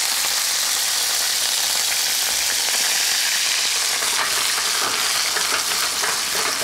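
Young fern shoots frying in hot olive oil in a pan, a steady sizzle with a cluster of sharper crackles about four to five seconds in.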